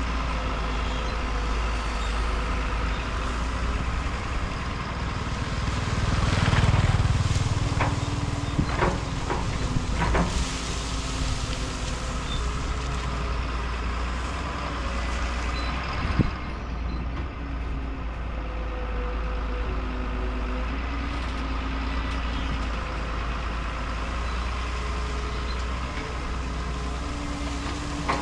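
Caterpillar tracked excavator's diesel engine running steadily as it digs, swelling louder about six to seven seconds in. A few sharp knocks from the bucket striking the ground and roots come around eight to ten seconds in, with one more near sixteen seconds.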